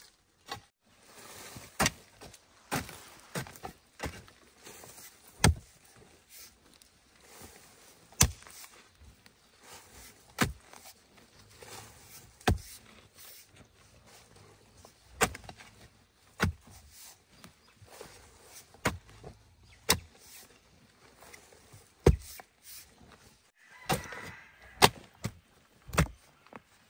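A digging tool striking into earth: sharp, irregular strikes every one to three seconds, with softer scuffs of loose soil between them.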